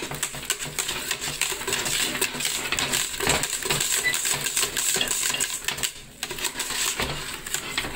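A wire balloon whisk clinking and scraping against a stainless steel pot, used to mash soft boiled potatoes. Rapid, steady clatter with a brief pause about six seconds in.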